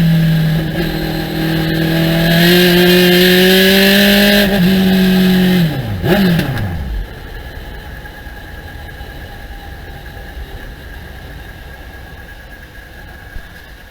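Thunder Roadster race car engine running at a fairly steady speed, then shut off about six seconds in, its pitch falling steeply to nothing within about a second. A quieter steady hiss is left after it stops.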